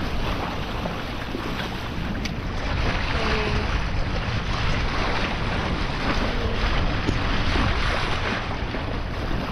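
Wind buffeting the microphone over water washing along the hull of a sailboat under sail, a steady rushing with a heavy low rumble.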